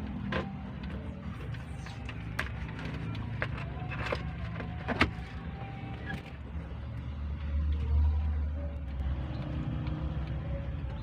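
A few sharp clicks and knocks of hand work on wiring and fittings, the loudest about five seconds in, over a steady low rumble that swells for a couple of seconds around eight seconds in.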